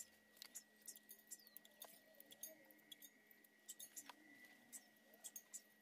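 Near silence with scattered faint clicks and ticks from handling an electric guitar and its Floyd Rose bridge hardware, over a faint steady high tone and low hum.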